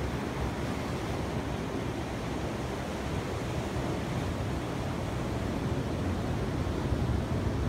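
Steady rush of ocean surf on the beach, with a low rumble of wind buffeting the phone's microphone.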